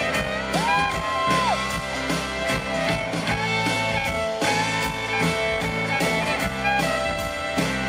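Live country-rock band playing an instrumental passage: fiddle over bass, acoustic guitar and a steady drum beat, with one sliding note rising and falling about a second in.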